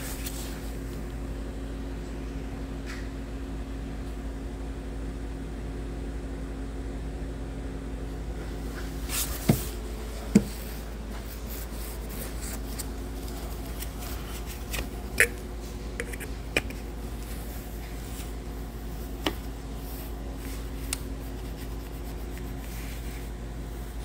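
Scattered sharp clicks and knocks of plastic and metal engine parts being handled by hand around a car's throttle body, a few seconds apart, the loudest two near the middle, over a steady hum.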